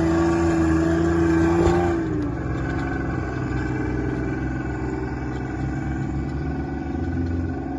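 Toyota Land Cruiser 80 Series engine running. A steady high note heard at first sags in pitch and fades out about two seconds in.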